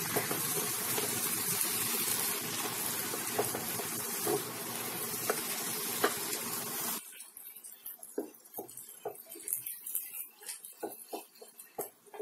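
Chopped onion, peppers, corn and tomatoes sizzling in a frying pan while being stirred with a wooden spatula, cooking until the tomatoes soften. The sizzling cuts off abruptly about seven seconds in, leaving only the scrape and tap of the spatula against the pan.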